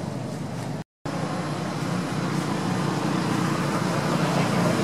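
Steady outdoor background noise with a low rumble, broken by a brief total dropout about a second in and growing a little louder toward the end.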